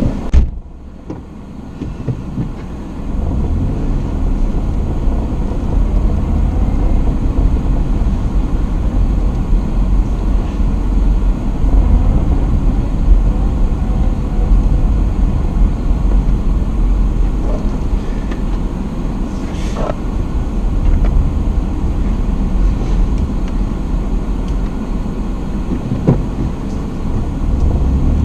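A car door shuts with a thump less than a second in. After a short lull, the steady low rumble of a small car's engine and tyres builds as it pulls away and keeps on while it drives, heard from inside the cabin.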